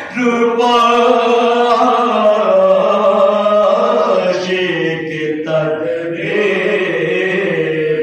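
Men chanting a marsiya/soz lament in slow, long-held notes, the melody drawn out over several seconds on each line, with no instruments.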